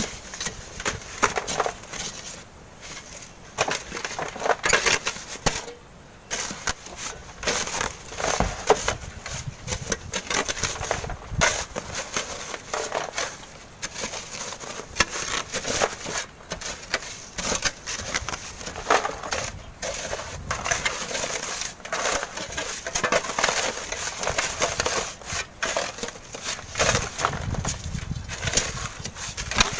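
Steel shovels and hoes scraping and chopping into packed sand and gravel, many irregular crunching scrapes from several workers at once.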